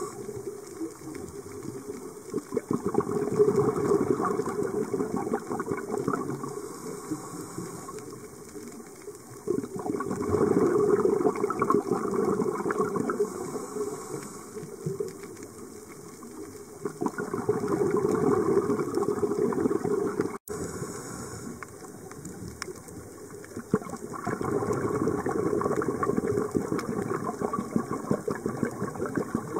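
A scuba diver's exhaled regulator bubbles, recorded underwater: a rushing bubbling surge about every seven seconds, four times, with quieter stretches between as the diver breathes in.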